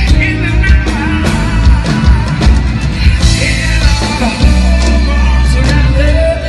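A live band playing through a PA at a sound check, with heavy bass and regular drum hits.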